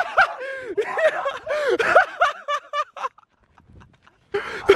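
Men laughing excitedly, a quick run of short ha-ha sounds that breaks off about three seconds in; voices start up again near the end.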